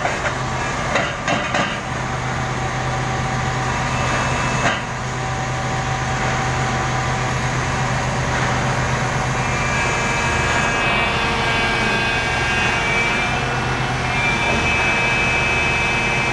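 Komatsu PC400 excavator's diesel engine running steadily under hydraulic load while its thrown steel track is worked back toward the front idler. A few metallic knocks come in the first few seconds, and a thin high whine sets in about ten seconds in.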